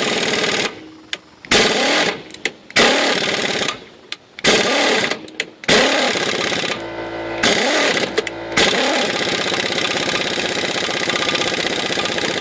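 Power impact wrench run in repeated short bursts, spinning up and down, on a stuck, freshly lubed nut on a rusty trailer axle bolt, run back and forth to free it without galling the threads; near the end it runs continuously as the nut spins off.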